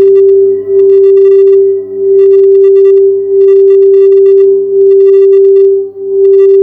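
Quartz crystal singing bowl sounding one sustained, steady tone that swells and dips about once a second. Short bursts of a higher buzz come and go above it.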